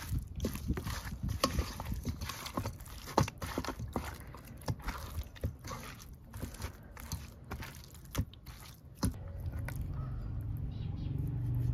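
Irregular sharp crunching knocks, two or three a second, as food is cut or handled during cooking. About nine seconds in the knocks stop and a steady low rumble takes over.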